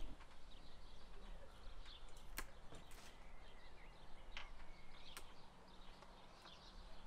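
Faint birdsong, with a few sharp snips of hand pruning shears cutting twigs from a silk tree, about two and a half, three, four and a half and five seconds in.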